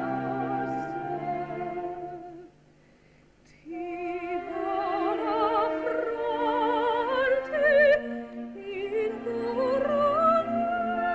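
Coloratura soprano singing with orchestra, in wide vibrato. A break of about a second comes roughly two and a half seconds in, then the phrases climb to a held high note near the end.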